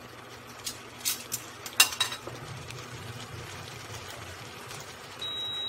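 A utensil clinking and scraping in a nonstick frying pan as udon noodles are stirred, with a few sharp clicks in the first two seconds, the loudest a little before the two-second mark. Near the end a high, steady electronic beep sounds for about a second.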